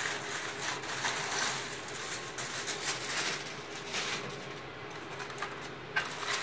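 Aluminium foil crinkling and rustling in irregular crackles as it is peeled back off a baking tray.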